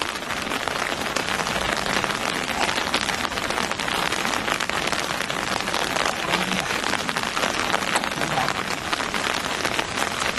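Fast-flowing floodwater rushing steadily down a narrow canal and through a set funnel net.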